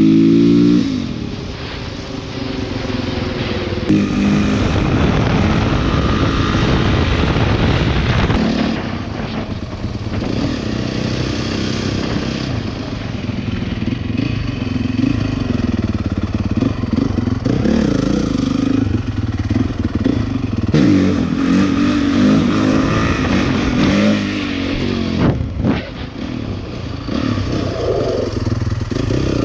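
Honda CRF450 dirt bike's single-cylinder four-stroke engine revving up and dropping back again and again while riding.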